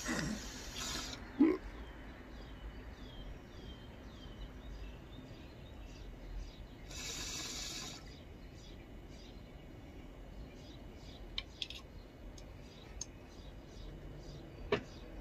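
Hit from an 18-inch glass beaker bong: a hiss of drawn air at the start, a sharp click about a second and a half in, and a rush of air lasting about a second around seven seconds in as the chamber is cleared. Small birds chirp repeatedly in short calls throughout.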